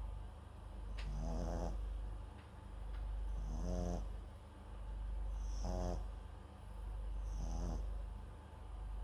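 A small Papillon–Japanese Chin mix dog snoring in its sleep close to the microphone. There are four short pitched snores about two seconds apart, each with a hiss of breath, in a steady rhythm.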